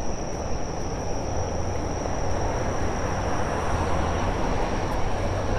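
Steady low rumble of a busy city street that swells a little toward the middle, with a constant high insect trill above it.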